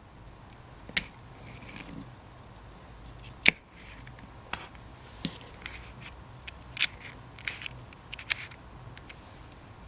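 Small tools and plastic parts of a Canon IXUS 950 compact camera being handled during repair: irregular sharp clicks with light scraping between them, the loudest click about three and a half seconds in, over a faint steady hum.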